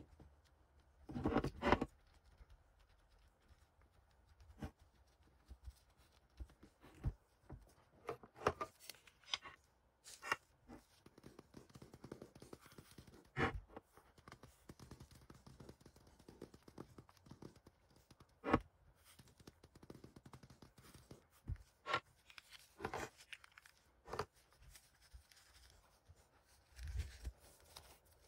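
Irregular handling noises from gloved hands working a tape dispenser and dabbing it with an ink applicator: scattered taps, clicks and rubbing, with a louder cluster of knocks about a second in.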